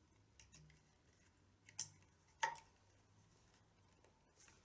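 A few sharp clicks and taps from hands and a hook working the tabla's leather lacing (badhi) while it is tightened. The two loudest come about halfway through, the second with a short ring; the rest is near silence.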